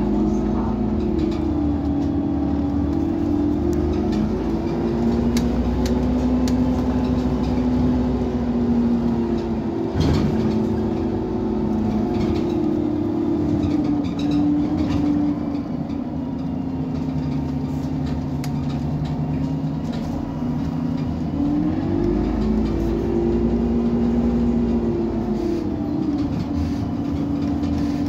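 Iveco Cursor 8 compressed-natural-gas engine of an Irisbus Citelis 18 articulated bus running at standstill. Its engine speed rises and falls gently several times, higher in the first few seconds and again about three quarters of the way through, steadier and lower in the middle. A short knock comes about ten seconds in.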